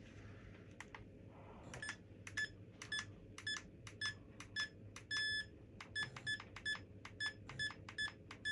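Electronic buzzer beeping: a run of short beeps at one fixed pitch, about two a second, with one longer beep about five seconds in, from the RC plane's FPV electronics as they are powered up and tested.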